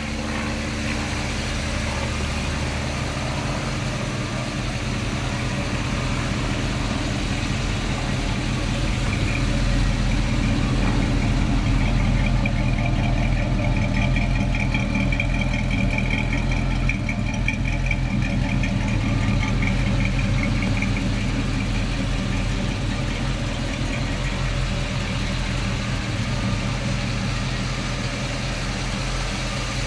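1955 Ford F-100 pickup's engine idling steadily, somewhat louder for several seconds midway.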